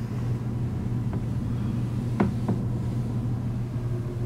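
Steady low hum of a cruise ship's onboard machinery heard inside a cabin, with a few faint clicks around the middle.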